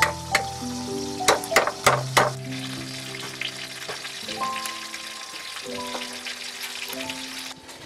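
A knife chopping hard on a wooden board, a quick run of sharp knocks in the first two seconds or so as it cuts the tips off horn snail shells. After that comes a rough, crackly hiss, all over background music with held notes.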